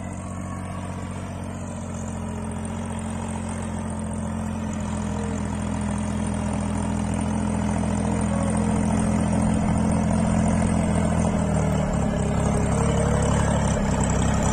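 Farmtrac compact tractor's diesel engine running steadily under load while working a tiller between crop rows, growing steadily louder as it comes closer and turning rougher in the last couple of seconds.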